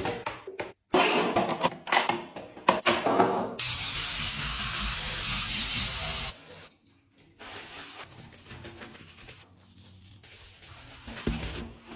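Knocks, clicks and rubbing from household items being handled, then about two and a half seconds of steady hiss, then quieter scattered clicks.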